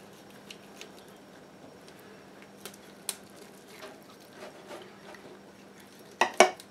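Knife and fork carving a roast chicken on a ceramic platter: soft cutting sounds with a few light clicks, then two sharp louder clicks of metal on the plate near the end.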